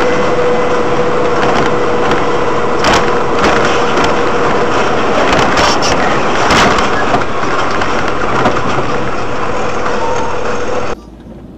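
Loud, steady vehicle running and road noise picked up by a dashcam in a moving vehicle, with a thin steady whine over the first half and several sharp knocks and rattles.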